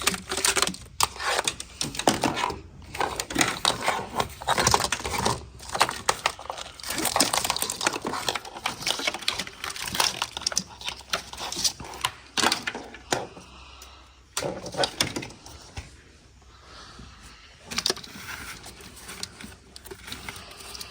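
Irregular clicking, rattling and scraping from hands working on engine parts with hand tools: plastic connectors, clips and metal pieces knocking and snapping. The sound is quieter and sparser from about two-thirds of the way through.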